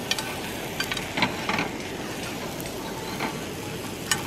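Food strips sizzling in a pan over a gas camping stove, with metal tongs clicking and scraping against the pan several times as the pieces are turned.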